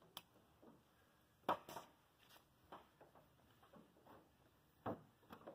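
Brief, scattered swishes and light scrapes of a towel being rubbed by hand over the polished aluminium skin of an Airstream trailer, a few seconds apart, the loudest about a second and a half in. Otherwise near silence.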